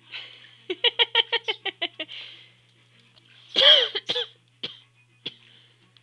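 Animal calls: a quick run of about ten short harsh calls, then one louder, longer call that bends in pitch, followed by a few short sharp calls.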